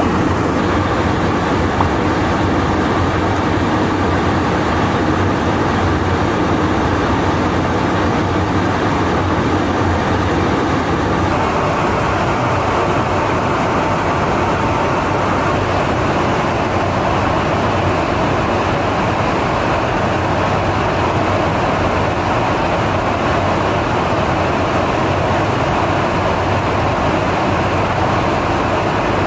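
Steady rush of airflow and engine noise inside an aerial refuelling tanker in flight. The tone shifts slightly about eleven seconds in.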